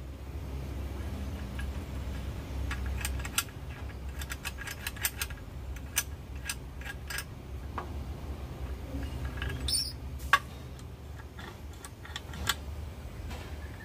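Scattered light metallic clicks and clinks from a hand-built steel lever tool for cracking pangium seeds as its lever and pivot bolt are handled and fitted, over a steady low rumble.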